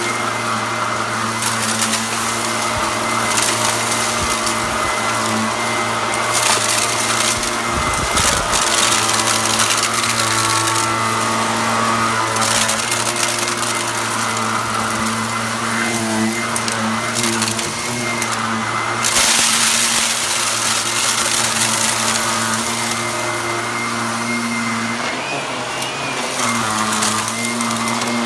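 Upright vacuum cleaner running on a rug, sucking up dry rice and elbow macaroni that rattle up through the nozzle. The motor hum stays steady, with a few louder rushes of noise as it pulls in debris.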